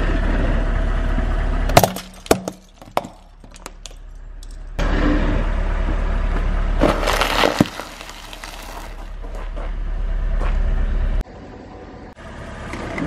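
A car tyre rolls onto a pile of plastic building bricks, which crack and snap in a quick cluster of sharp pops about two seconds in, over the low running of the car. After a cut, the tyre crushes a box of crunchy cereal, a loud crunching burst about seven seconds in.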